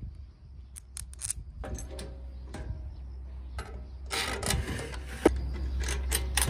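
Light metallic clicks and clinks of steel bolts, washers and stainless sheet-metal stove parts being handled and fitted together by hand, with a denser clatter and rubbing from about four seconds in.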